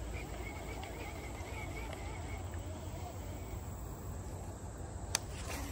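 Riverbank ambience: a low steady rumble with a faint, thin high call in the first two seconds. A single sharp click comes about five seconds in.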